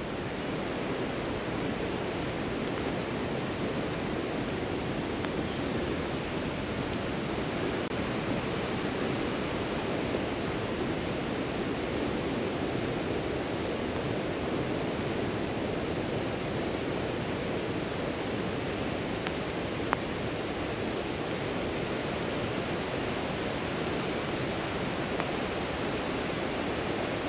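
Steady, even rush of a river running fast over rocks. One brief click comes about twenty seconds in.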